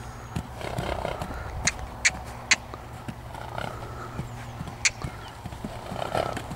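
Horse trotting on a sand arena: hoofbeats, with sharp knocks, three close together about two seconds in and one near five seconds.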